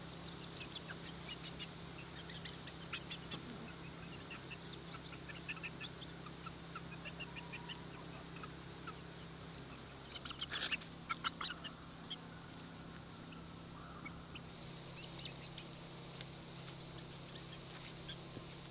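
Chickens clucking and peeping softly as they forage, in short scattered calls, with a louder flurry of calls about ten seconds in.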